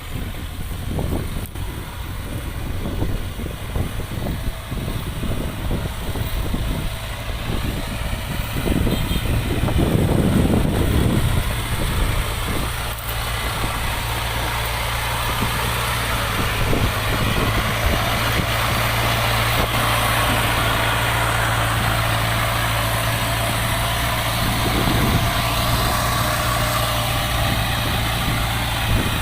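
Engine of a tracked rice-hauling farm machine running steadily, swelling louder for a couple of seconds about ten seconds in, then settling back to an even hum.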